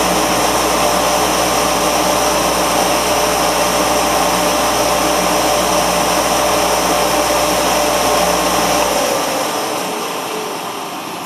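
KUFO dust collector of the CNC router's chip removal system running with a loud, steady rush and hum. About nine seconds in it is switched off and winds down, its tone falling as it slows.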